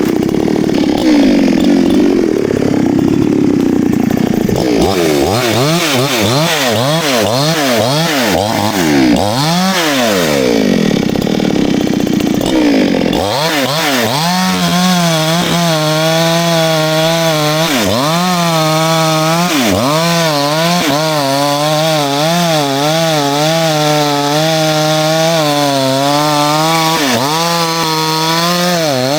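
Two-stroke chainsaw cutting through wood, the engine pitch dipping and recovering again and again as the chain is loaded. From about halfway it settles into a steadier, lower note with regular brief dips as it works through the cut.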